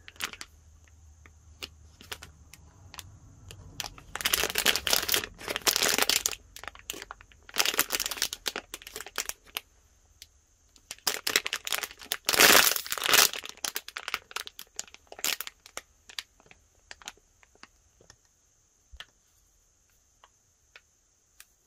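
Clear plastic packaging bag crinkling in several loud bursts as a squishy toy is unwrapped from it. After about sixteen seconds the rustling gives way to a few faint ticks.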